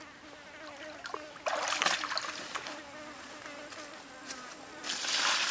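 A flying insect buzzing with a steady, slightly wavering hum. Two short bursts of rustling hiss come over it, about one and a half seconds in and near the end.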